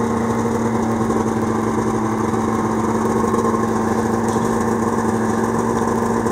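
Yamaha snowmobile engine idling steadily while it warms up before riding off.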